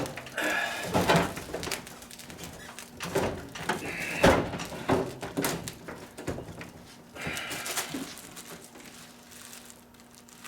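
Thunks and scraping from a heavy over-the-range microwave being lifted and knocked against its wall mounting bracket, in three bursts with pauses between.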